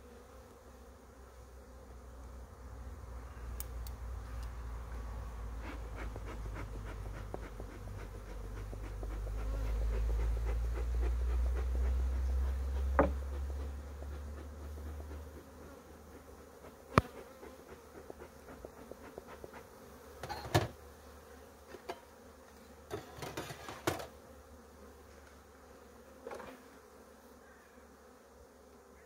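Honeybees buzzing around an open hive, with a low hum that swells to its loudest about ten seconds in and then fades. In the second half, scattered sharp knocks and clicks of hive frames and boxes being handled.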